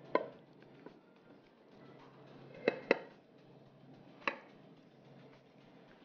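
Metal kitchen utensils clinking on cookware: a sharp clink at the start, two quick ringing clinks near the middle, and one more about a second and a half later.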